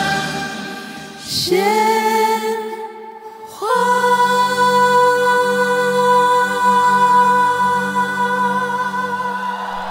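Group of female singers singing in harmony over the accompaniment, holding the closing word "鲜花" ("flowers") as a long final chord. The voices come in about a second and a half in, then again at about four seconds with the long held note, which softens near the end.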